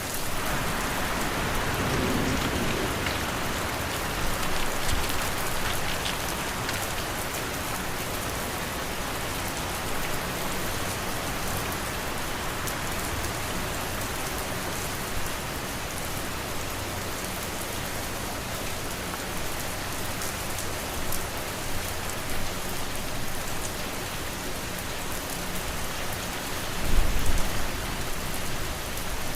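Steady rain ambience: an even hiss of rain falling on a surface with scattered drop ticks, blended with fan and wind noise, and a brief low rumble near the end.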